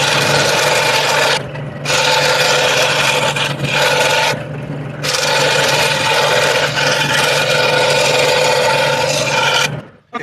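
Scroll saw running and cutting wood: a steady motor hum under the rasping of the blade through the workpiece. The cutting noise breaks off briefly twice, about a second and a half and four and a half seconds in, while the motor keeps running, and the saw stops near the end.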